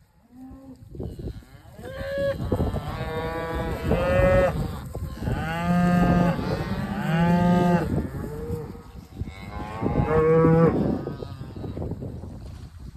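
Cattle mooing: several long calls, some overlapping, from a herd being moved through a narrow gate.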